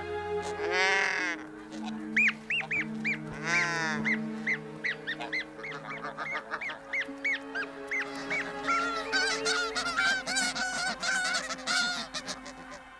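Snow geese honking. Two loud, harsh calls come in the first four seconds, then a quick run of short honks from several birds, over background music with long held notes.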